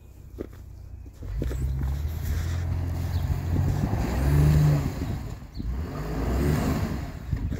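Ford Raptor pickup's twin-turbo V6 engine revving in surges as the truck works its way out of packed snow, starting about a second in and rising and falling in pitch, loudest near the middle.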